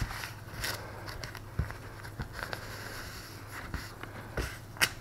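Masking tape and a cardboard patch crackling and scraping faintly under a leather beekeeping glove as the tape is pressed and smoothed onto the drywall, with a few scattered light clicks.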